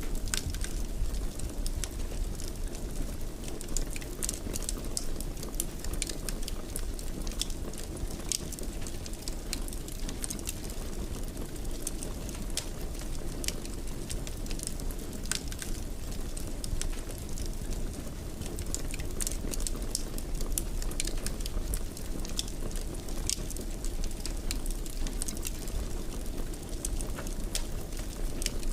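Wood fire burning in a fireplace: a steady low rumble of flames with frequent, irregular sharp crackles and pops.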